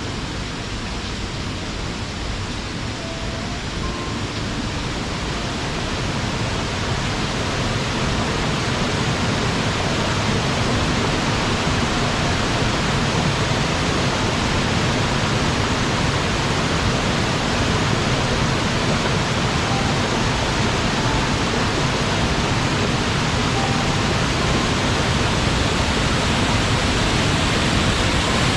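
Mountain waterfall: a steady rush of falling water that grows a little louder over the first several seconds, then holds.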